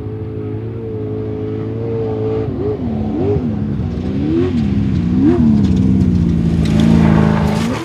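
Off-road race vehicle's engine running at a steady pitch, then revving up and down four times before holding a lower, steady note as it grows louder.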